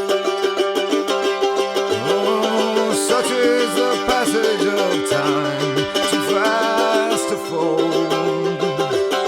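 Background music: fast, evenly picked plucked strings, with a sliding melody line coming in about two seconds in.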